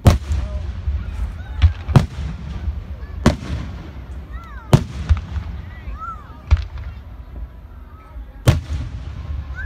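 Aerial firework shells bursting close by, about seven sharp booms spaced a second or two apart, with a low rumble between them.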